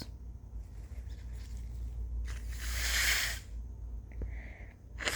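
A woman's forceful, breathy rush of air through her nose, about a second long, near the middle; a second, sharper one starts right at the end. Her nose is irritated by turmeric put in it to force sneezes.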